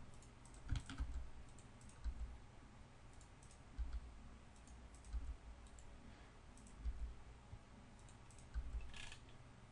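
Faint, scattered clicks of a computer mouse and keyboard as vertices are selected and moved, with a few soft low thumps over a steady low hum.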